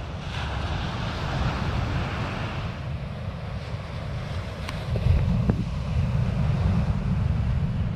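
Surf breaking and washing up a sandy beach, with wind buffeting the microphone in a low rumble that grows louder about five seconds in.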